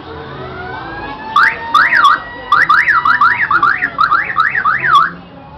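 Emergency-vehicle siren sounding in quick rising-and-falling sweeps, about four a second, starting about a second and a half in and stopping suddenly near the end, over a slower wailing tone.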